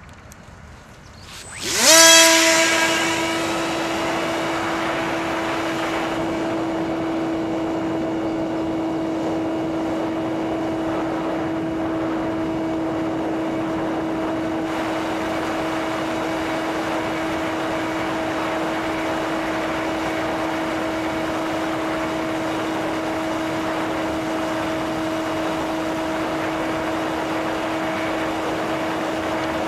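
Small electric motor and propeller of a homemade radio-controlled airplane spinning up for takeoff. The whine rises quickly in pitch about two seconds in and is loudest as it comes up to speed. It then holds one steady pitch.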